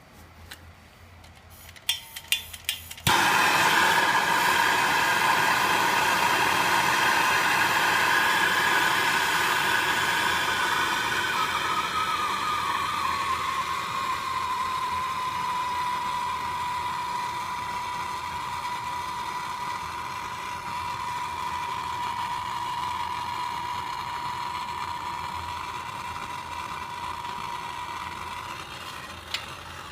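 Electric heat gun switched on with a click, blowing steadily with a fan whine that wavers, then settles to one steady pitch. It is likely shrinking the heat shrink connectors on the wood splitter's wiring.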